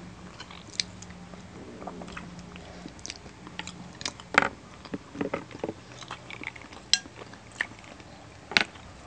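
Close-up eating sounds: two people chewing soft chocolate cake, with scattered short clicks and taps of wooden forks on plates.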